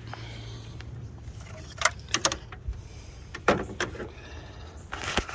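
Metal hand tools and small screws clinking and rattling as coil packs are unbolted in a Jeep engine bay, a few sharp clinks in the middle and again near the end, over a steady low hum.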